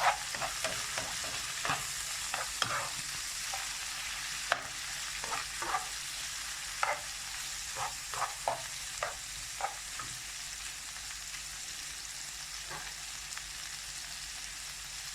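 Chicken breast frying in hot oil in a pan, with a steady sizzle. A utensil scrapes and taps against the pan as the meat is stirred, many times in the first ten seconds and only now and then after that.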